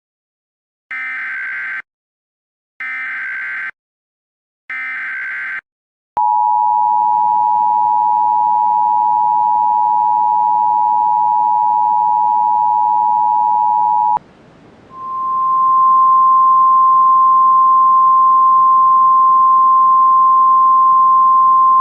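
Emergency Alert System header and alarm: three short screeching SAME data bursts, then the two-tone EAS attention signal held for about eight seconds. After a brief break, a single steady NOAA Weather Radio warning alarm tone starts and runs on. Together they announce an incoming emergency alert, here a tornado warning.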